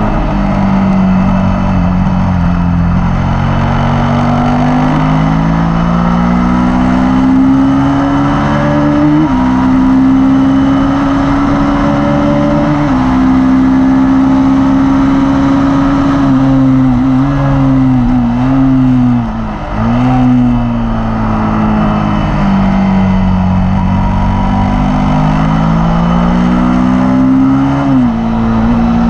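Suzuki SV 90° V-twin motorcycle engine at speed on a track lap, its pitch climbing and stepping with gear changes. Near the middle it drops in several quick dips as the bike brakes and downshifts, then climbs again. A rush of wind noise runs underneath.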